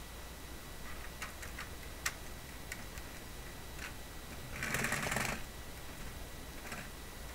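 Faint plastic clicks and taps as a small action figure is handled and fitted into the rear seat of a 1:18 diecast Ford Bronco model, with a sharper click about two seconds in. About five seconds in comes the loudest sound, a brief scrape lasting under a second.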